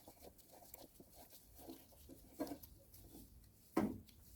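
Faint, scattered light clicks and knocks of hand tools and parts being handled, with a louder knock about a second before the end.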